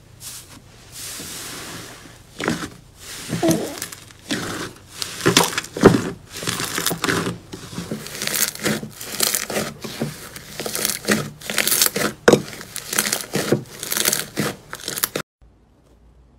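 Thick purple slime being pressed and kneaded by hand, making irregular crackling, squelching pops several times a second. The sound stops abruptly near the end.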